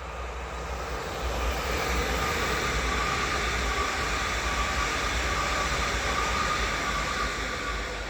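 A train passing on the line: wheel-on-rail rumble and rush that builds over the first second or two, holds steady, and eases off near the end, with a steady high whine running through it.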